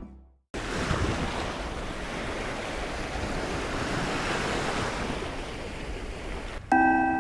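Steady wind and sea noise out on a ship's deck, starting abruptly after a moment of silence. Near the end a bright multi-tone chime strikes and rings on: the ship's announcement chime.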